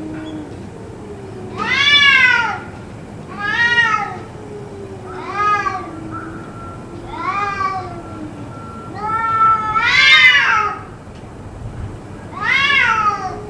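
Cats yowling over and over: about six long wailing calls, each rising then falling in pitch, with a lower drawn-out moan running underneath, the kind of caterwauling the uploader suspects is a cat fight.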